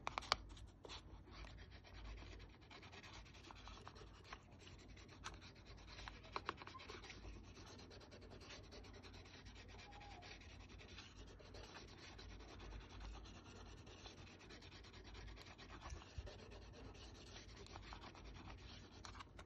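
Steel blade of a small flat-head watchmaker's screwdriver, held in a sharpening jig, rubbed back and forth on an 800-grit diamond sharpening stone. The result is a faint, steady scraping, with a few sharper clicks near the start and again about six seconds in.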